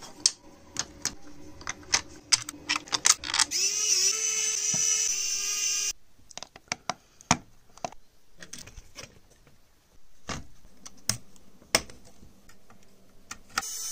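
Scattered clicks and taps of 3D-printed plastic parts and electronic components being handled and fitted together. A steady whine joins in a few seconds in and stops abruptly about six seconds in.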